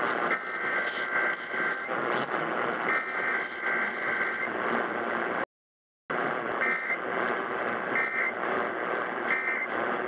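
Emergency Alert System digital header bursts, harsh screeching data tones, from KDKA 1020 AM through a portable radio's speaker and mixed with AM static; the sound cuts out completely for about half a second midway. The bursts open the station's weekly EAS test.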